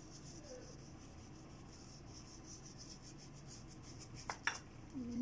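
Faint rubbing and rustling of gloved fingers crumbling a topping and sprinkling it over cake batter, with two light clicks near the end.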